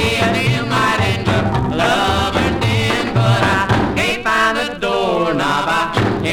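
A 1950s country record: two voices singing together over a band with a steady beat.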